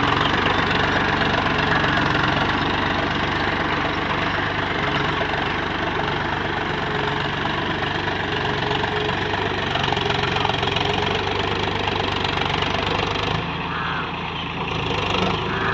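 Tractor diesel engine running steadily under load as it pulls a cultivator through field soil. The sound dips briefly near the end.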